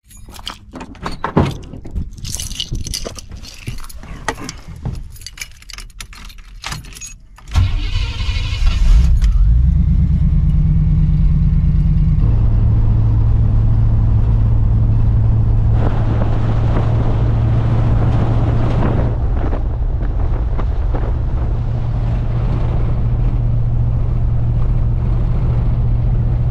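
Keys jangling and clicking, then about seven and a half seconds in the engine of a squarebody Chevrolet Suburban starts with a sudden loud burst and settles into a steady run, its note shifting about twelve seconds in.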